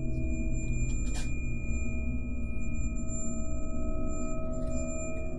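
Steady electronic tone, one pitch with overtones, from a handheld ghost-hunting meter with a telescoping antenna, over a low hum. One sharp click about a second in.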